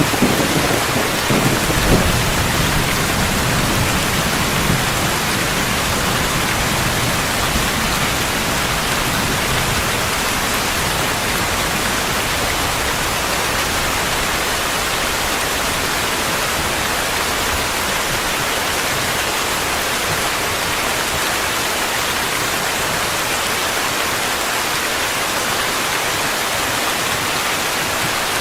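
Steady rain, with a low rumble of thunder in the first few seconds that fades away, leaving the even hiss of the rain.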